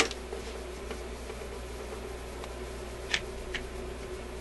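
A few light clicks of small parts being handled at a record player's tone arm: one at the start and two about three seconds in, half a second apart, over a steady low hum.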